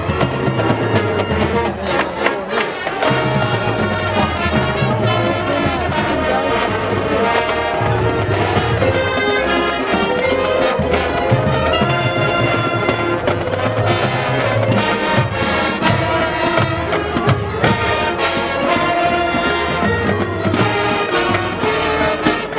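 Marching band playing: brass (trumpets, trombones) carrying sustained chords over drumline and mallet percussion.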